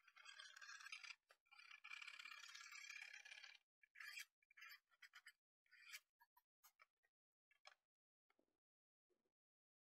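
Wood chisel scraping out a table-saw-cut groove in a weathered wooden board: a steady scrape for about three and a half seconds, then scattered short scrapes and ticks. Two soft knocks near the end as a flat steel strap is set into the groove.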